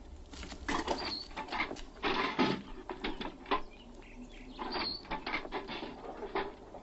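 Old wicker baby carriage being pushed and then rolling on its own across pavement, its wheels and frame rattling and clicking, with a brief high squeak about a second in and again near five seconds.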